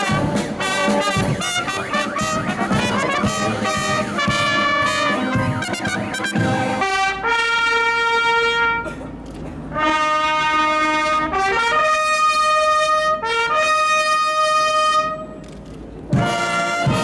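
Military brass band of trumpets, trombones and tubas playing: a march with a steady beat for the first several seconds, then, after a sudden change, long held brass chords of a fanfare, each lasting a second or two, with two short breaks between phrases.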